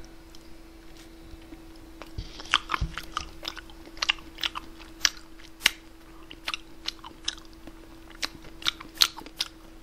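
Mouth sounds of a person eating Cherry Jubilee ice cream off a small plastic spoon: a run of short, wet smacks and clicks of lips and tongue starting about two seconds in, over a faint steady hum.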